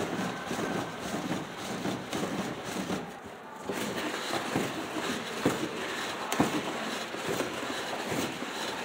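Hand-cranked cardboard automata running: the crank and cam mechanism rattling and scraping as it turns, with a few sharper clicks.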